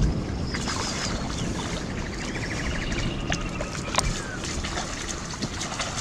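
Shallow muddy water splashing and sloshing as people wade through it and prod sticks into it, with wind noise on the microphone. A brief run of rapid chirps comes about two seconds in, and a sharp click near four seconds.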